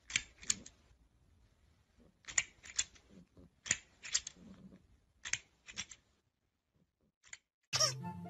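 Toy crocodile clicking in short runs of several sharp, snapping clicks that repeat about every second and a half, as its jaws work.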